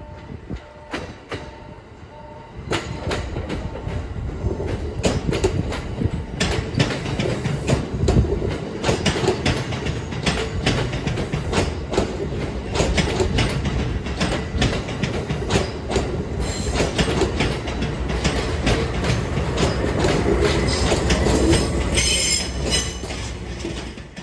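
Train rolling past on jointed track, its wheels clicking over rail joints and points with a low rumble, louder from about three seconds in. Brief high wheel squeal comes near the end.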